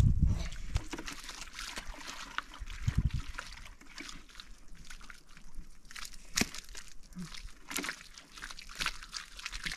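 Water sloshing and trickling, with many small clicks and a few dull knocks.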